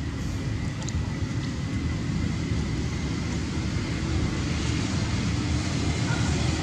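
Steady low rumbling noise with a thin hiss above it, even throughout.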